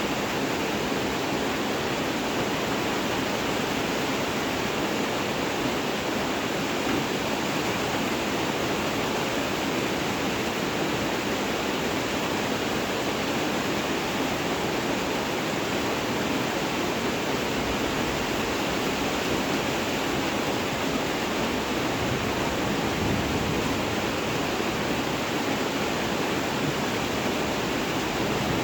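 Steady rain, an even hiss without pause or change.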